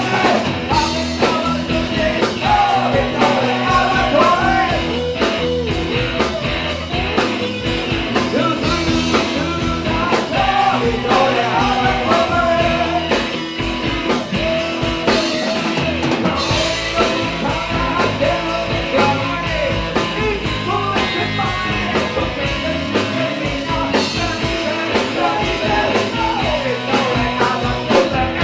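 Rock music: a band with drum kit and electric guitars playing a steady beat, a wavering melodic line over them.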